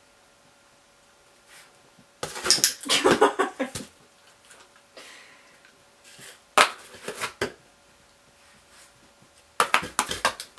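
Empty cardboard box being knocked, shoved and stepped into by a small terrier, clattering in three bursts of rapid knocks and scrapes: about two seconds in, midway, and near the end.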